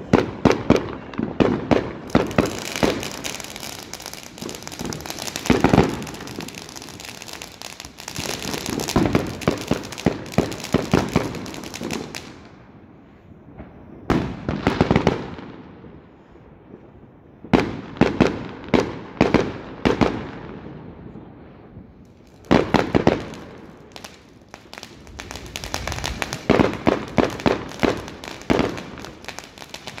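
Fireworks going off: volleys of rapid sharp bangs and crackling as shells launch from the ground and burst overhead, coming in several bursts separated by brief lulls.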